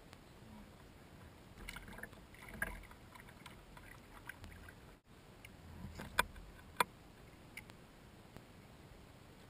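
Faint knocks, taps and rattles of gear being handled in a kayak. A cluster of small taps comes about two seconds in, and two sharp clicks, the loudest sounds, come a little after six seconds in.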